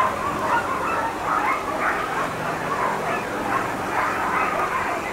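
A harnessed sled dog team barking, yipping and whining all at once in a continuous overlapping din. This is the excited clamour of dogs held at a race start line, eager to run.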